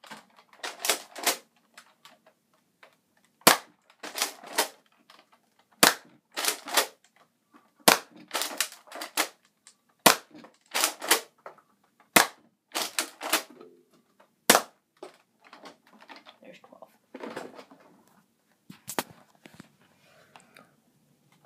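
A modded Nerf Alpha Trooper pump-action dart blaster with an upgraded 5K spring, firing: a sharp crack about every two seconds, six times, each followed by a quick run of plastic clacks as the pump is worked. After the last few shots come fainter rattling and handling noises.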